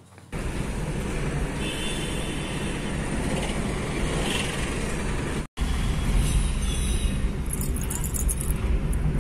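Inside a moving car: steady low road and engine rumble, which cuts out for an instant about halfway through, with light rattling near the end.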